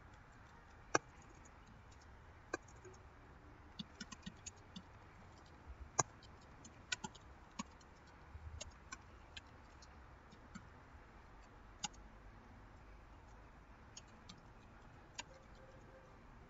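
Faint, irregular computer keyboard key clicks as a sentence is typed, in short runs with gaps between them.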